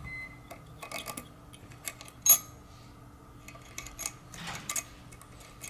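Light metal clicks and clinks from a steel thrust washer being handled over a needle roller bearing. The loudest is a short ringing clink about two seconds in.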